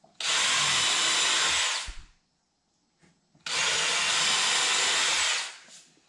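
Cordless drill boring pilot holes into a hardwood table leg: two steady runs of about a second and a half to two seconds each, the second starting about three and a half seconds in. These are the pre-drilled screw holes for surface-mounted connector hardware.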